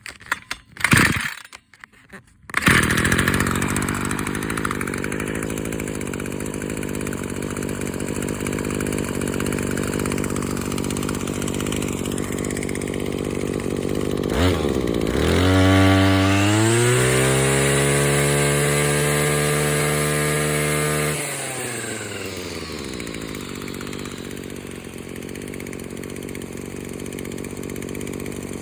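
Maruyama Big M KC26NX1 brush cutter's small two-stroke engine: a few short bursts, then it catches about two and a half seconds in and settles to idle. About fifteen seconds in it revs up to high speed, holds there for some five seconds, then drops back to a steady idle.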